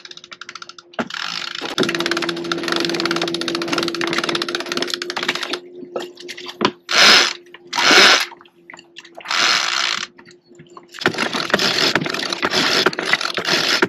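Sailboat winch being ground to hoist a person up the mast on a halyard: a fast, even ratcheting of the pawls that stops for a few seconds and resumes near the end. In the pause come two short loud rushing bursts about a second apart.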